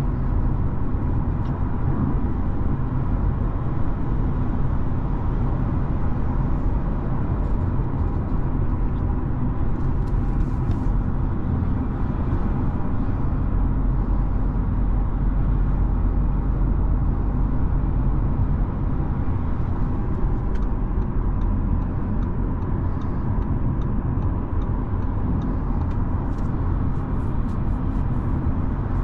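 Inside the cabin of an Audi A4 B9 with a 2.0-litre four-cylinder turbo petrol engine and automatic gearbox, cruising at highway speed: a steady low rumble of tyre, road and engine noise. A few faint clicks come through around the middle and near the end.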